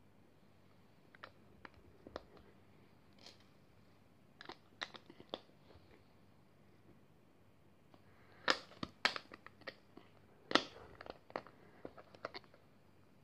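Plastic LEGO bricks being handled and snapped together onto a small plate: scattered sharp clicks and light rattles, sparse at first, then a quicker, louder run of clicks in the second half.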